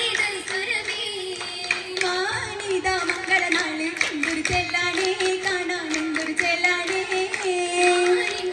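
Oppana song: girls singing a Mappila melody in unison, with the dancers' rhythmic hand claps cutting through it.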